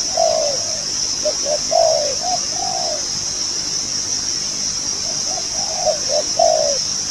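A decoy dove cooing: two phrases of low, rolling coo notes, the first starting just after the beginning and the second about five seconds in.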